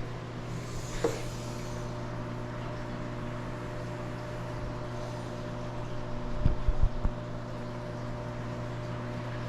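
Steady low mechanical hum of running equipment, with a light knock about a second in and a few dull low thumps around six to seven seconds in.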